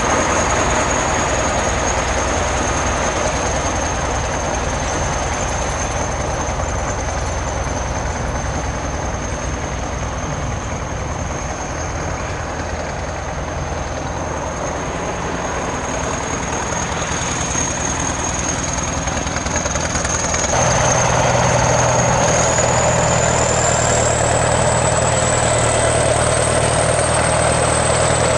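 ChTZ T-170 bulldozer's diesel engine running steadily with a high whine over it. About twenty seconds in it gets louder and the whine rises in pitch as the revs go up.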